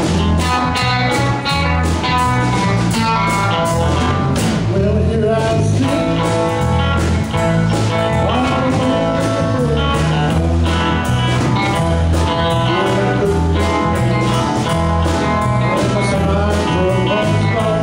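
A live band playing: a drum kit keeping a steady beat, keyboard and electric guitar over a heavy bass line, with a man singing.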